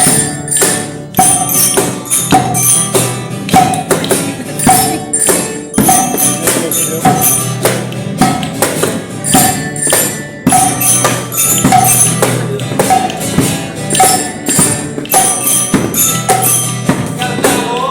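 Music: an instrumental passage with percussion struck on a steady, even beat over sustained pitched notes.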